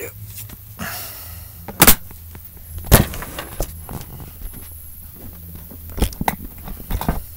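Clear plastic sheeting crinkling as it is pushed aside, with several sharp knocks, the loudest about two and three seconds in and another pair near the end, over a low steady hum.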